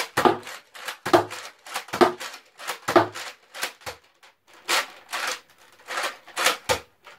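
Nerf Elite Disruptor blaster being primed and fired over and over: sharp plastic clacks of the slide and plunger, about one a second, some with a short thump. The darts have run out, so the blaster is dry-firing.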